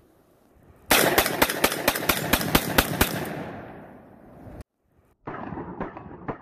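Lynx 12 (SDS Imports LH-12) AK-style semi-auto 12-gauge shotgun fired in rapid succession, about ten shots in two seconds, emptying a 10-round magazine. The echo dies away over about a second and a half. Then the sound cuts out abruptly, and fainter quick clicks follow.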